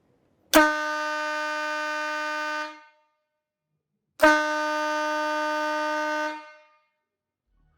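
Air horn driven by a 12 V mini electric compressor freshly lubricated with WD-40, sounded twice: two steady single-pitched blasts of about two seconds each, each starting sharply and tailing off quickly, with a pause of about a second and a half between them.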